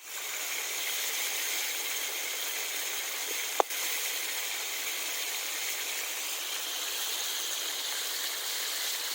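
Steady, even hiss with a single sharp click or pop about three and a half seconds in.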